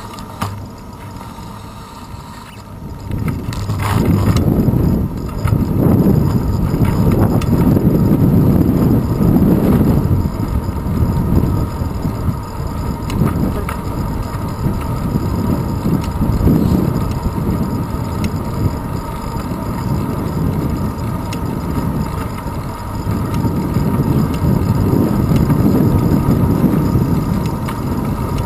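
Wind buffeting the microphone of a handlebar-mounted GoPro Hero 2 on a moving bicycle, mixed with tyre and road noise. It is fairly quiet for the first few seconds, then from about four seconds in it becomes a loud, uneven low rumble that rises and falls.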